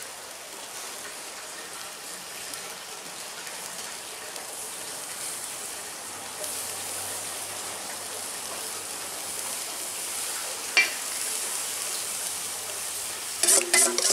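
Marinated meat skewers sizzling on a grill, a steady frying hiss that grows a little louder about halfway through. A sharp click comes about three-quarters of the way in, and a short burst of louder sounds comes at the very end.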